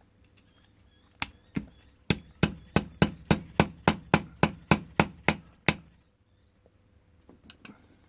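Hammer tapping a pin punch to drive a pin down into a brass padlock body: two taps, then an even run of about a dozen sharp taps, roughly three a second, stopping about six seconds in.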